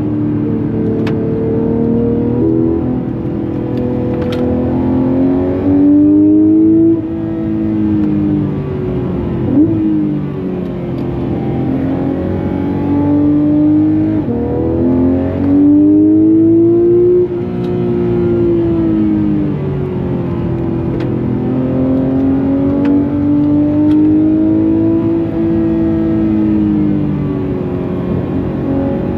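Porsche 991.2 GT3 RS's naturally aspirated flat-six engine heard from on board the car at speed, its pitch climbing under acceleration and dropping again, over and over, as the driver goes up and down through the gears.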